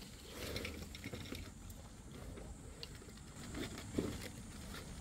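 Quiet outdoor ambience with a faint low rumble and scattered soft ticks, and one light knock about four seconds in.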